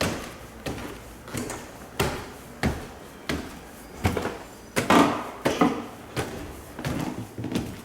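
A regular run of knocks and thumps, about three every two seconds, with the ring of a small room after each.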